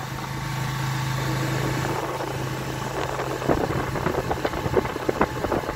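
Motorcycle engine running with a steady hum; from about three and a half seconds in, irregular knocks and rattles come in over the engine sound.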